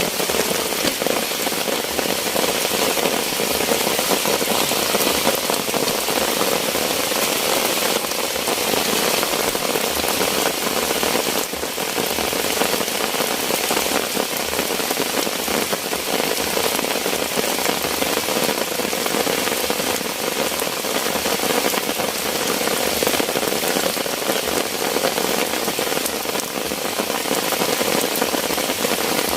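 Heavy rain falling steadily, a dense unbroken hiss of drops on surfaces.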